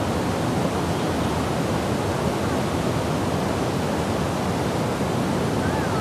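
Low waterfall pouring over a bedrock ledge into a pool at fairly low flow: a steady, even rush of water.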